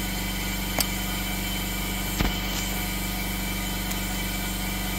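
Steady mechanical hum with two short sharp metallic clicks, about a second in and about two seconds in, as a valve spring compressor is set in position on a valve spring of a BMW M73 V12 cylinder head.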